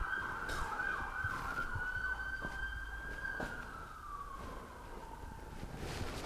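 Emergency vehicle siren wailing: a high held tone with quick repeating sweeps beneath it, sliding down in pitch over the last couple of seconds. A few light knocks sound over it.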